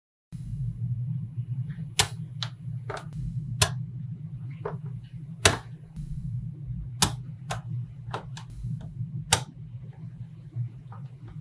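Small magnetic balls clicking as they snap together, about a dozen sharp irregular clicks, some coming in quick runs, over a steady low hum.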